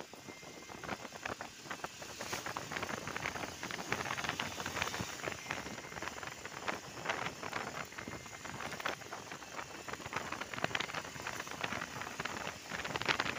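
Wind and road noise on the microphone of a moving motorbike: a dense, crackling hiss with no clear engine note.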